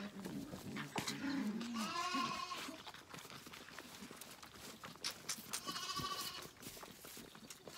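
Zwartbles lambs bleating during bottle feeding: two clear, high-pitched bleats, one about two seconds in and another about six seconds in, with lower calls near the start.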